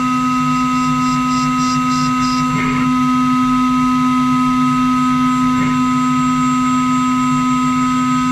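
CNC router running steadily while machining parts, a constant multi-tone machine hum, with two brief swells in the noise about a third and two-thirds of the way through.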